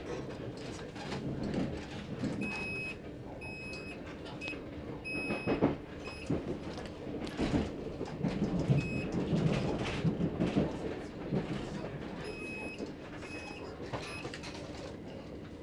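Inside a moving Heathrow Express electric train drawing into London Paddington: the low rumble and clatter of the carriage running over the track, with short high-pitched tones or squeals starting a few seconds in and breaking off irregularly.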